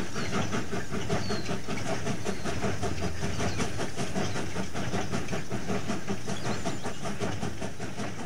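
Steam train running, a steady rhythmic beat of about three to four strokes a second with hiss, starting to fade away near the end.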